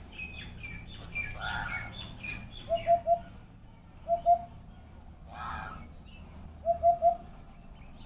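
Eurasian hoopoe giving its low 'oop-oop-oop' call three times, each a quick group of two or three notes. Smaller birds chirp higher in the first couple of seconds, and there is a brief noise about five and a half seconds in.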